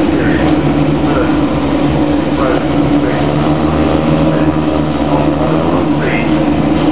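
A pack of FIA Formula 2 single-seaters running together, with a steady engine drone from the many cars. A few short rising engine notes from individual cars pick up speed over it.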